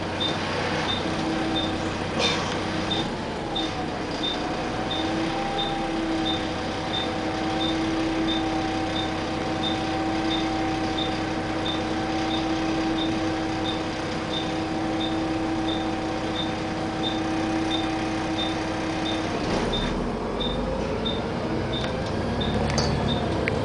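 Double-decker bus engine idling, heard from the upper deck, with the turn indicator ticking steadily about one and a half times a second. About 20 seconds in, the idle hum gives way to a rising engine note as the bus pulls away.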